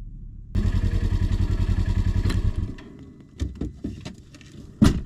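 4-inch 1.3G fireworks shell going off inside a fiberglass mortar tube in a catastrophic failure (CATO): a loud, rapidly fluttering roar for about two seconds, then a few sharp cracks and bangs, the loudest near the end. It is the failure that splits the tube in half.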